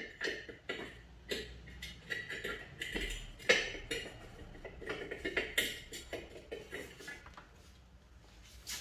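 Irregular metallic clicks and scrapes of a hand tool working at a bolted metal plate over the engine mount deep in the engine bay; they die away near the end.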